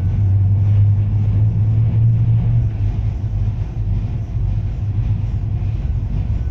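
Blackpool tram running along its track, heard from on board: a steady low rumble of wheels on rails and motors, a little louder in the first few seconds.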